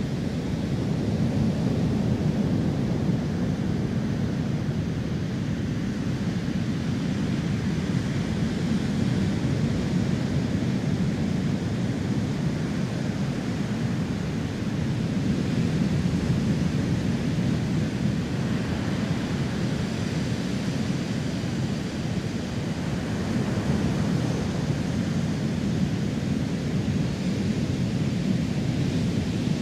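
Steady roar of surf breaking on a pebble beach, swelling and easing every several seconds.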